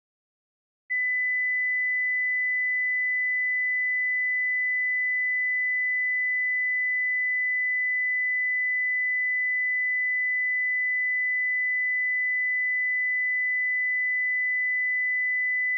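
A pure 2 kHz sine-wave test tone at −12 dB FS, a one-second digital file played in a loop at steady amplitude, starting about a second in. Its level never changes, so its slew rate stays normal, with no over-slew.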